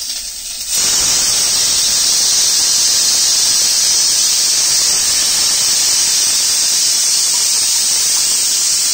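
Pressure cooker venting steam on a gas stove: a loud, steady hiss that starts sharply about a second in and holds at an even level.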